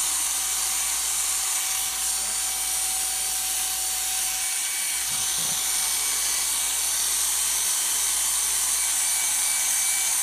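Electric dog grooming clippers running steadily as they cut through a miniature schnauzer's curly coat.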